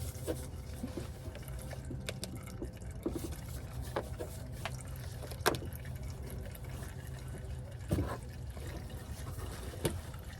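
Used engine oil draining from the car's sump into a catch pan, over a low steady hum. Scattered clicks and knocks come through, the loudest about five and a half and eight seconds in.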